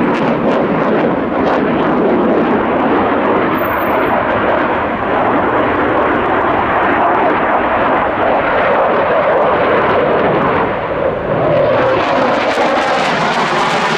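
Czech Air Force JAS-39C Gripen's Volvo RM12 afterburning turbofan, a loud steady jet roar as the fighter flies its display. About twelve seconds in the sound turns sharper and hissier, with a sweeping, phasing whine as the jet draws close.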